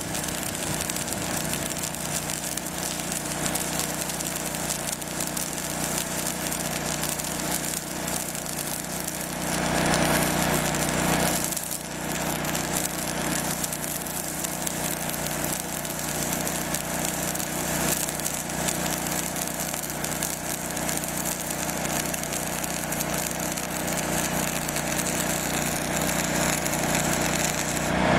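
Arc welding on structural steel: the welding arc crackles and hisses steadily, briefly breaking about halfway through. A steady engine hum runs underneath.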